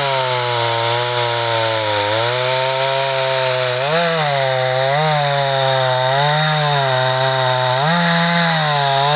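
Stihl MS 250 two-stroke chainsaw with a short bar running at full throttle while cutting into a large log. The engine pitch sags under the load and recovers again, several times in the second half.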